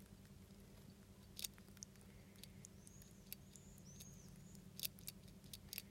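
Near silence with a handful of faint, sharp little clicks at irregular intervals from a velveteen rex pet rat with the hiccups.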